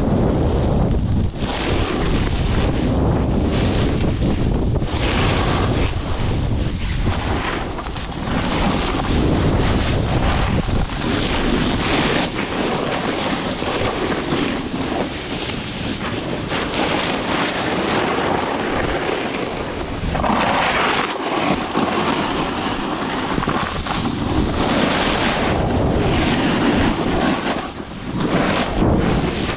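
Wind buffeting the microphone of a camera carried down a groomed slope, mixed with the scrape of snowboard edges over packed snow, swelling and easing with each turn.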